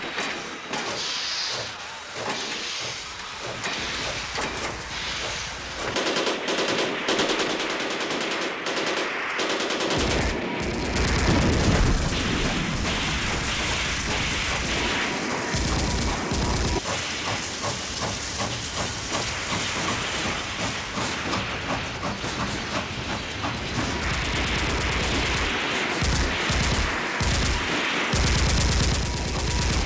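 Steam locomotive hissing as it vents steam, with rapid bursts of rifle and machine-gun fire. A heavy low rumble joins about ten seconds in.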